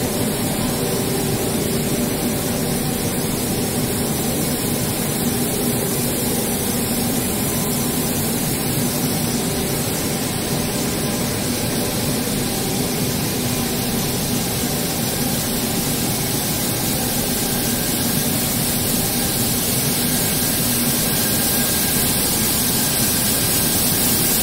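Steady drone of a running BOPP tape coating machine, mostly the air of its box-type drying-oven fans and drive motors, with a few faint steady hums underneath.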